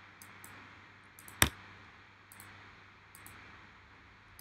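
Faint scattered clicks at a computer, with one sharp, much louder click about one and a half seconds in, over quiet room hiss.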